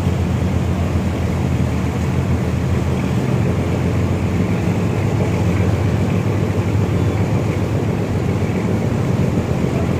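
Steady low engine rumble with water rushing along the hulls, from a pilot service boat running alongside a moving ship.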